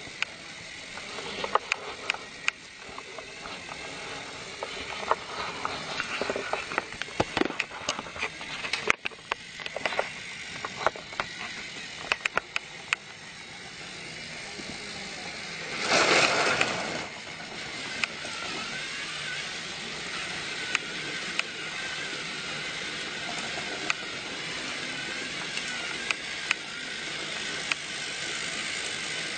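Battery-powered toy train running on plastic track: a steady motor hum with many sharp, irregular clicks through the first half. About sixteen seconds in there is a loud burst of noise lasting about a second, and after it the hum runs on steadier.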